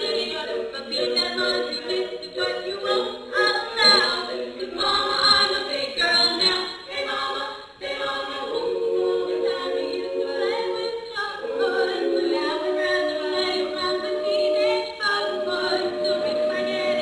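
All-female a cappella group singing in close harmony without instruments. Quick, shifting phrases fill the first half, there is a brief break a little before the middle, and then the voices settle into long held chords.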